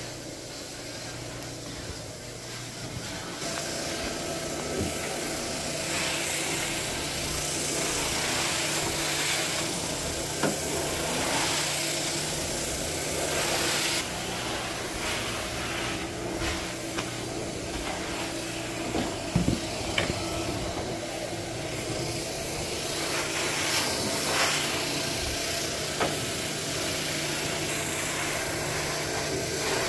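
Carpet shampoo extractor running: its motor hums steadily while the wand's floor tool is drawn over the carpet, spraying and sucking up water with a steady hiss. It gets louder a few seconds in, with a few short clicks and knocks from the wand.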